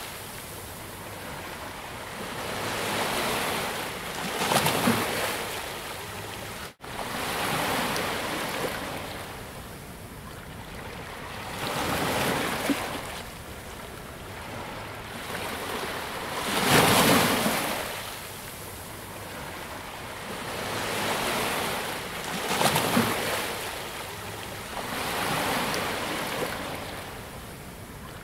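Sea waves breaking and washing up a beach, the surf rising and falling every few seconds, loudest about seventeen seconds in. The sound cuts out for an instant about seven seconds in.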